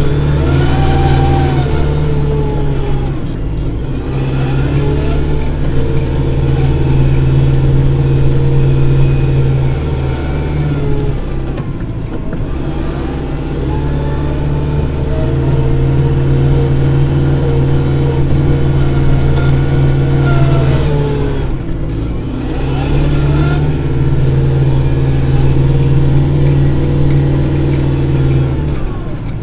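Kubota tractor's diesel engine running steadily while clearing snow with a snow blower; its note briefly dips and comes back up about every nine seconds.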